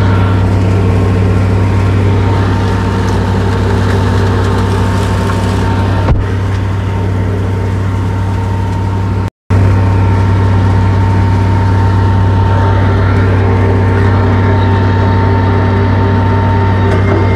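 Tractor engine running steadily under way, with a strong low hum. There is one sharp knock about six seconds in, and the sound cuts out briefly about nine seconds in.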